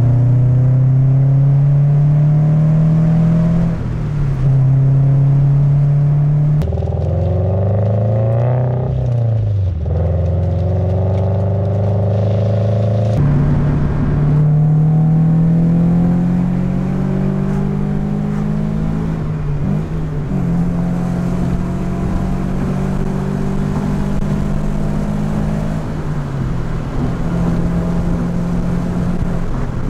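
Toyota 86's 2.0-litre flat-four engine and exhaust, fitted with an aftermarket DC Sports overpipe, heard from inside the cabin while driving. The engine note climbs steadily in pitch over several long stretches, breaking off and dropping back a few times. The owner finds it sounds about the same as with the stock pipe.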